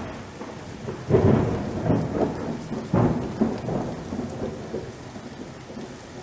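Heavy rain falling, with low rumbling surges that start about a second in and again about three seconds in, each fading off.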